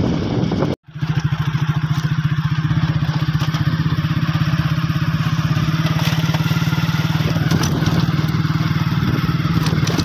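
Motorcycle engine running steadily at an even pace with a fast, regular throb; it starts abruptly about a second in.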